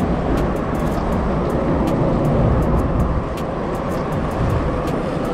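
Steady rumble of road traffic on the bridge overhead, with faint light ticks scattered through it.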